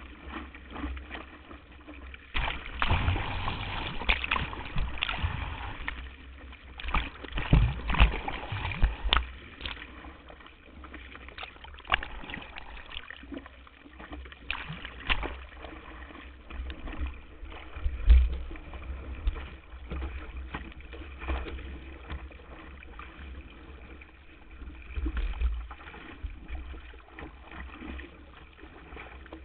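Water rushing and splashing against a windsurf board's nose and the camera mounted on it as the board sails through chop: a steady low rumble with irregular slaps of spray and waves, heaviest a few seconds in and again at scattered moments.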